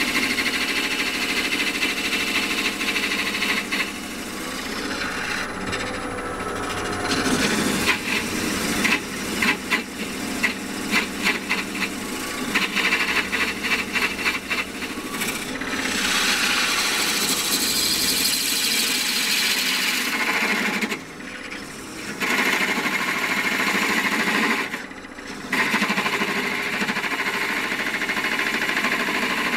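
Wood lathe running while a parting tool cuts a groove into the spinning wooden blank, a steady scraping of steel on wood. There is a stretch of rhythmic chatter about a third of the way in, and the cutting sound drops away briefly twice about two-thirds through.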